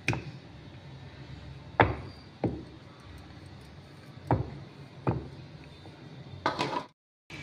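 Wooden rolling pin and wooden rolling board knocking as thin dough is rolled out: five separate sharp knocks a second or so apart, then a short clatter near the end, after which the sound cuts off suddenly.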